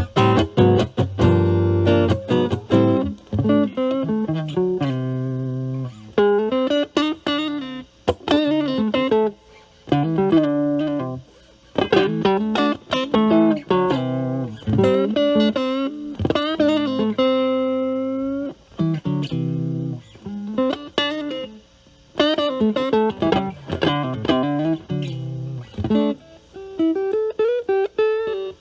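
Stratocaster with single-coil pickups played through an Ibanez Super Metal mini distortion pedal with its drive at 9, into a Marshall Valvestate amp's clean channel. It plays distorted chords and single-note licks in short phrases with brief gaps, with one long held note a little past the middle.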